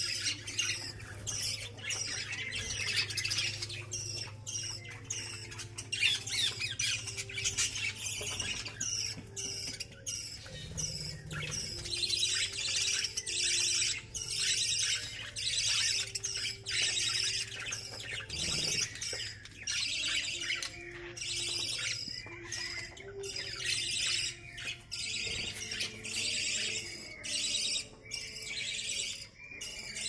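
A flock of budgerigars chattering and squawking nonstop, many birds at once, over a steady low hum.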